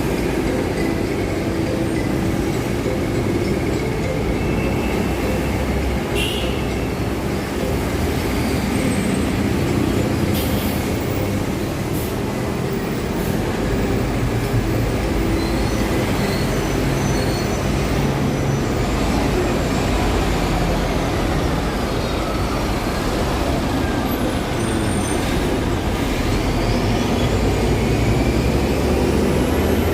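Steady city street traffic with buses running past a bus stop. A high whine falls in pitch about two-thirds of the way through, then rises again near the end, with a few sharp clicks along the way.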